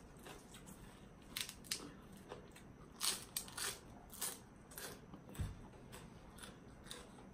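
A person chewing crunchy food close to the microphone, likely green papaya salad and raw vegetables: a run of irregular crisp crunches, the loudest a few seconds in.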